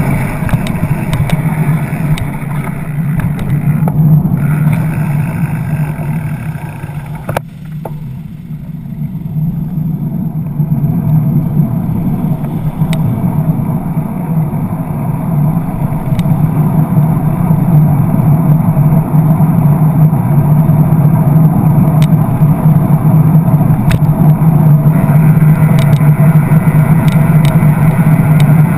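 Riding noise from a bicycle's handlebar-mounted camera in traffic: a continuous rushing rumble of wind on the microphone and road noise, with motor traffic alongside, dipping briefly about seven seconds in and growing louder from about ten seconds in. A few sharp clicks are scattered through.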